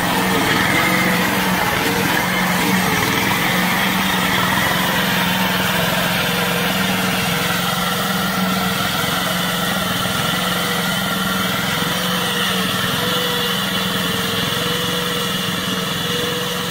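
Small engine of a homemade tracked tank running steadily as the tank drives, picking up in the first second and then holding an even drone.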